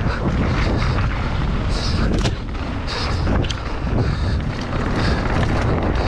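Mountain bike descending fast on dirt and gravel singletrack: heavy wind buffeting on the camera's microphone over the sound of tyres rolling on loose dirt and the bike rattling, with a few sharper knocks from bumps and rocks.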